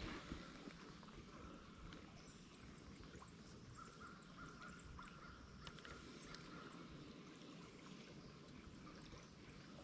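Near silence: faint creekside ambience with scattered small clicks, and a faint thin steady note from about four to seven seconds in.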